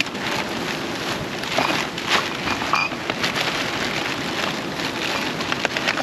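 Plastic litter (water bottles and wrappers) crinkling and crackling irregularly as it is stuffed into a bag, over a steady rush of stream water.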